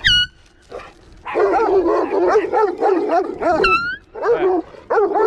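Several dogs barking at once in a rush of overlapping barks, with two short, shrill high notes, one right at the start and one about three and a half seconds in.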